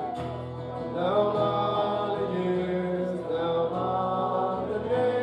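A man singing live into a microphone, accompanying himself on a strummed acoustic guitar.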